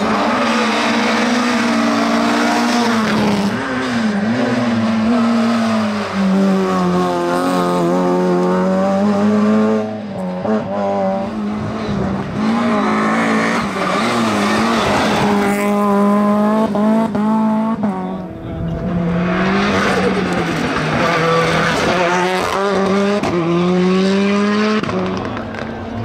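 Rally cars on a tarmac hillclimb one after another at full throttle, their engines revving up and dropping back in pitch again and again through gear changes and braking for the bends.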